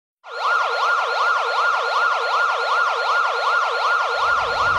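A siren yelping, its pitch sweeping up and down about two and a half times a second. It starts sharply and stops abruptly.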